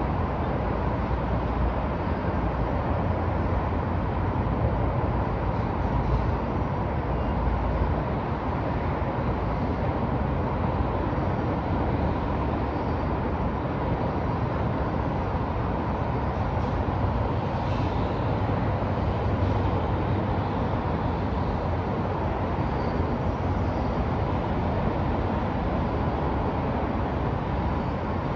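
Downtown city street ambience: a steady wash of traffic noise with a low rumble of passing vehicles, and no single event standing out.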